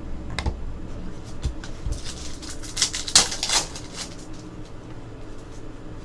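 Foil wrapper of a trading-card pack crinkling and tearing open, loudest in a cluster of crackly rustles a little past the middle. Soft clicks and slides of cardboard cards being handled come before and after it.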